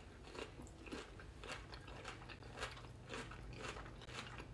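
A person chewing a crunchy raw cucumber bite topped with cream cheese, faint crisp crunches about twice a second.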